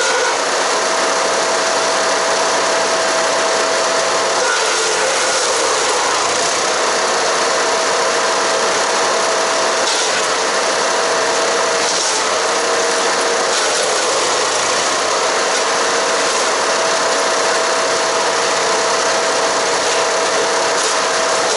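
Haige 15 hp wood chipper running hard while shredding cedar and cypress branches: a loud, steady grinding noise over the engine. The engine's note drops out or sags lower a few times, around four seconds in and again around twelve to fifteen seconds, as branches load it.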